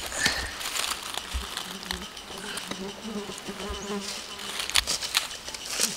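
A flying insect buzzing for a couple of seconds in the middle, its hum wavering in pitch, among scattered knocks and rustles.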